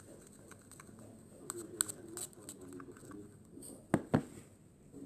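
Small sticky clicks and taps of slime being handled and mixed, scattered irregularly, with two sharper clicks about four seconds in.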